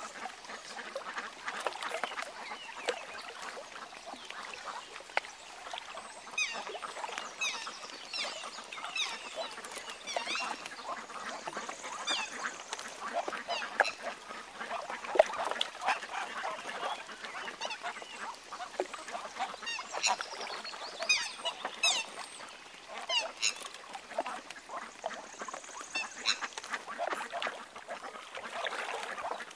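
Waterfowl calling on open water, with many short, high, falling chirps that come thickest from about six to eleven seconds in and again around twenty seconds in.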